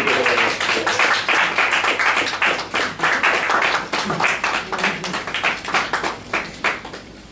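Audience applauding at the close of a performance, many hands clapping steadily, thinning out and fading near the end.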